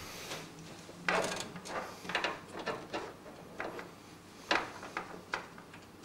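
Hands handling cables and parts inside a computer case: scattered light knocks and clicks with rubbing between them, the sharpest knocks about a second in and about four and a half seconds in.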